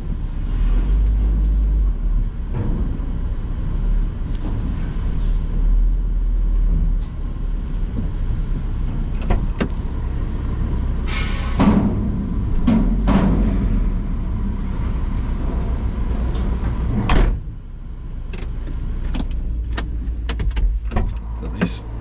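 Van engine running, heard from inside the cab as it drives slowly, with loud clattering about eleven to thirteen seconds in and a sharp knock a few seconds later, then a run of short clicks and rattles toward the end.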